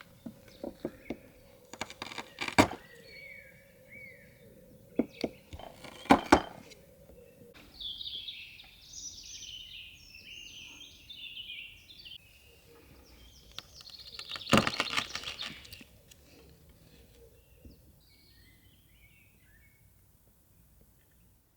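Small birds chirping in quick twittering phrases, most busily in the middle. Several sharp knocks come before them, and a longer clatter is the loudest sound, about two-thirds of the way through.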